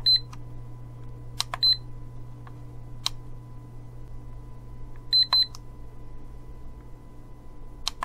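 Ethernet/USB cable tester giving short, high-pitched beeps as its button is pressed in manual mode to step the test from wire to wire, with sharp button clicks among them. A steady low hum runs underneath.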